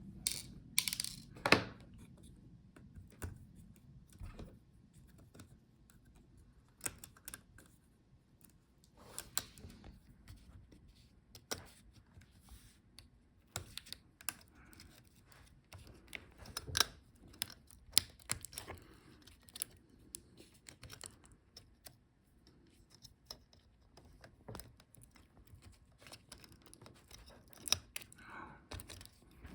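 Scattered light clicks and taps of small laptop parts being handled: the screw holding the USB and card-reader board coming out and the board being worked free of the chassis. The taps come at uneven intervals, a few louder than the rest.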